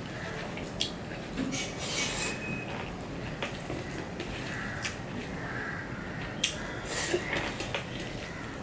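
Fingers mixing rice with fried water lily stems on a stainless steel plate: soft squishing with scattered short clicks and scrapes against the metal.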